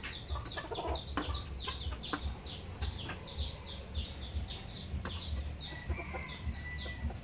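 Chickens calling in a steady run of short, high, falling cheeps, about three or four a second, with a few sharp knife taps on a wooden cutting board.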